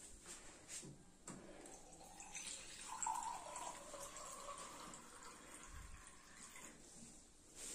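Water running from a water-purifier tap into a steel glass for about four seconds in the middle, with a few small clinks of the glass around it.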